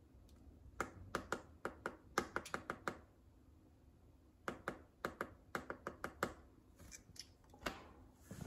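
Typing on a laptop keyboard: two quick runs of key clicks, each about two seconds long, then a few lone clicks near the end.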